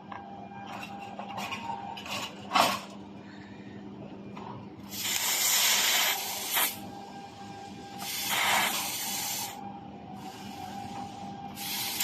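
Gas hissing from a handheld laser welding head in three bursts of one to two seconds each, as the laser fires, over the steady hum of the laser machine. A sharp click comes about two and a half seconds in.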